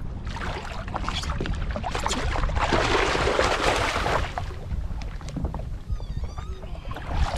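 A hooked fish thrashing and splashing at the surface beside a jet ski's hull, loudest from about two and a half to four and a half seconds in, over steady wind noise on the microphone.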